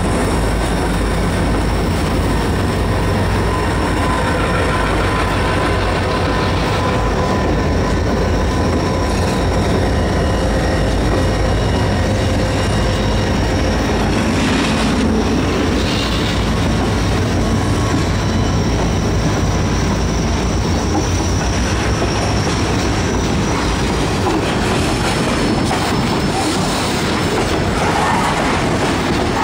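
Freight train rolling past: the cars' wheels running over the rails with a steady, thin high squeal over a continuous rumble. The deep low rumble is heaviest for the first dozen seconds or so, then eases.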